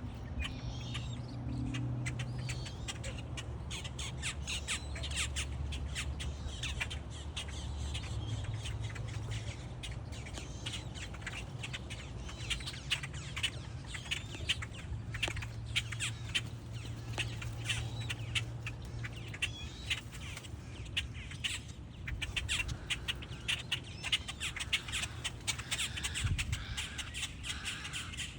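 A flock of moorhens calling, many short, noisy calls overlapping in a dense chatter that gets busier in the second half. A low hum runs underneath at times.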